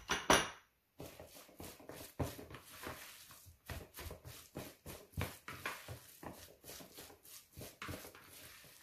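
Plastic spatula stirring and scraping crumbled tofu against a ceramic bowl: irregular soft scrapes and squishes, several a second, after a couple of sharp clinks at the very start.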